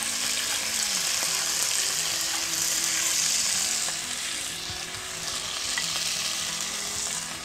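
Cubes of pork sizzling hard in hot oil in a cast-iron pot as they are seared, stirred with a wooden spatula. The sizzle eases a little about halfway through, then picks up again as more meat goes in.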